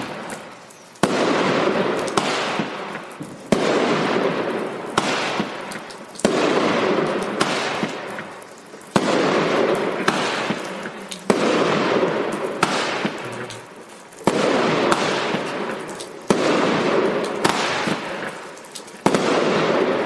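Glitter Kamuro fireworks battery firing shot after shot, about one every one to two seconds. Each shot is a sudden bang followed by a fading crackle.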